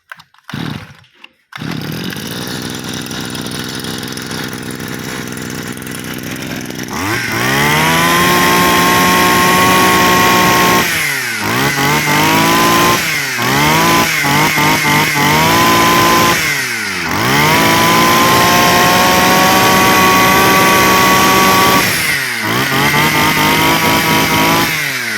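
Small two-stroke engine of a Kyoritsu Echo brush cutter, fitted with a new carburetor, starts about a second and a half in and idles. It is then revved hard several times on the squeeze throttle, with long high-pitched revs and a run of quick blips, falling back to idle between them.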